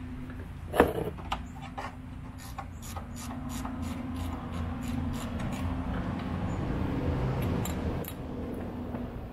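Hand tools and steel suspension parts clicking, knocking and scraping while a sway bar bushing bracket is worked into line, with one sharp knock about a second in.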